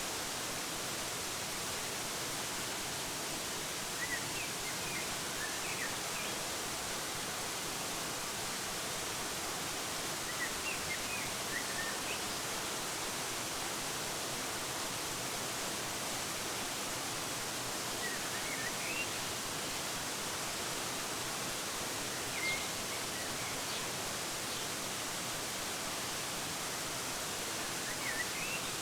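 Waterfall rushing steadily with a hissing wash of water, while small birds give brief clusters of high chirps every few seconds.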